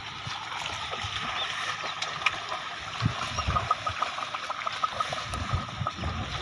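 A pair of bullocks pulling a plough through a flooded, muddy field: hooves and plough splash and slosh in the shallow water, with a few dull thuds of hooves in the mud.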